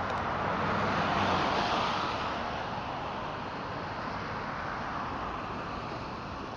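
Street traffic on wet pavement: the tyre hiss of passing cars, swelling as a vehicle goes by close about a second in, then a steady traffic noise.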